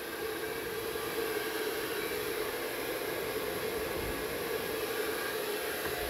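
Taiff Vulcan 2500 W hair dryer running steadily on its lowest fan speed with the heat off: an even rush of air with a steady hum.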